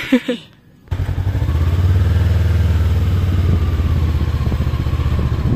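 A motorbike engine running steadily close by, a low hum with a fast, even pulse, cutting in abruptly about a second in.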